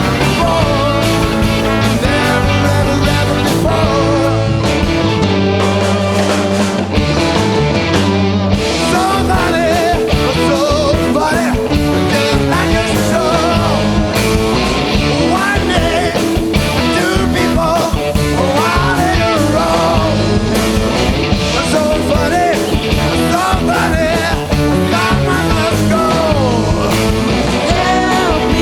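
Live jazz ensemble playing with singing: a full band of drums, bass, electric guitars, piano and horns. Held chords in the first few seconds give way to a wavering, sliding melody line from about a third of the way in.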